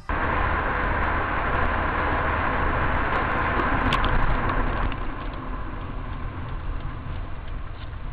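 A car driving: steady road and engine noise, easing off a little after about five seconds, with a short click about four seconds in.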